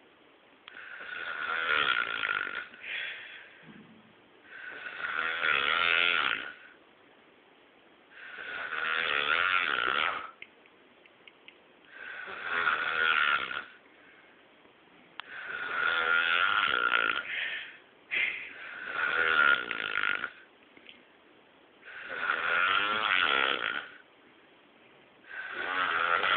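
Snoring: a long snore roughly every three to four seconds, about eight in all, with quiet gaps between breaths.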